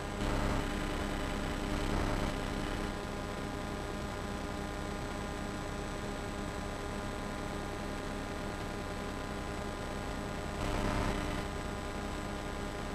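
Steady electrical hum with a hiss underneath, with brief faint swells of noise near the start, about two seconds in and near the end.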